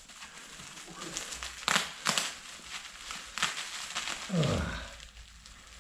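Plastic packaging wrap crinkling and rustling as it is handled and pulled off a parcel, with sharper crackles now and then. About four seconds in there is a brief low, falling voice-like sound.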